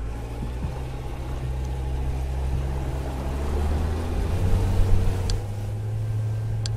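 A motorboat engine running with a steady low drone. Two faint ticks come in the last couple of seconds.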